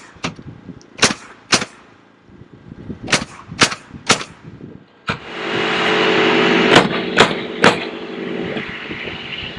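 Nails being driven into wood framing: sharp bangs in quick pairs and triplets, about half a second apart. About five seconds in, a loud steady machine noise starts up and runs on, with three more nailing bangs over it.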